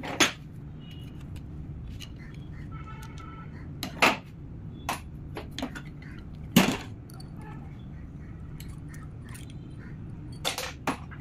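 Several sharp metallic clinks and knocks as a truck PTO unit's cast housing and splined shaft sleeve are handled and turned in a steel bench vise, over a steady low hum.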